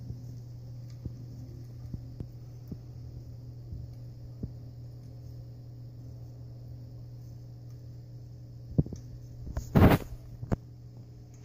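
Drinkwell Platinum pet water fountain running: its pump hums steadily, with a faint hiss of water falling from the spout. A few faint clicks in the first half, and a short loud bump about ten seconds in.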